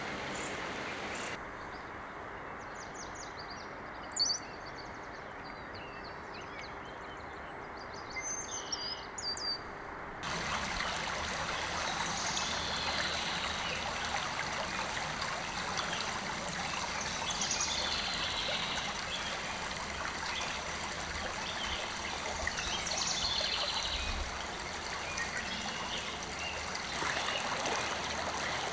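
Small birds chirping over a low steady hiss, with a single short tap about four seconds in. After about ten seconds a shallow stream starts running over a gravel bed, with birds singing over the rushing water.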